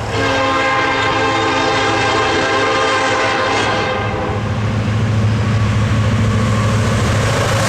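A freight diesel locomotive's multi-chime air horn, a Nathan K5LA, blowing loudly and cutting in abruptly, then fading out about four seconds in. The train's engine rumble and rolling wheels carry on underneath.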